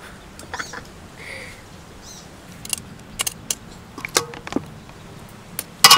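Metal tongs clicking and clinking against a wire grill rack as slices of raw beef offal are laid on it: a scatter of short, sharp clicks, with a louder cluster near the end.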